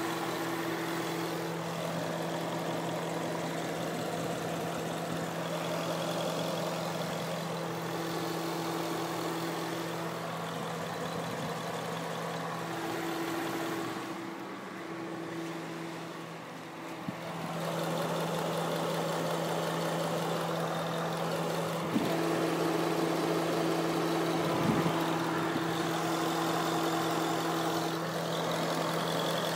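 2011 Ford Mustang GT's 5.0 V8 engine idling steadily. The level sags briefly midway, and there are two short clicks later on.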